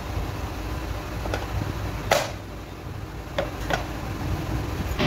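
A few scattered light metal clicks and knocks as parts are handled on an open Hero Splendor Pro motorcycle engine crankcase with its gear shafts in place, the loudest about two seconds in, over a low background hum.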